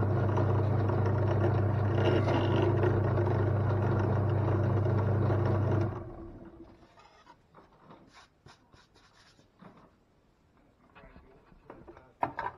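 Bench drill press running with a steady motor hum while it drills a hole through a sheet of plywood. It is switched off about six seconds in and winds down. Light knocks and scrapes follow as the piece is handled on the drill table, with one sharper knock near the end.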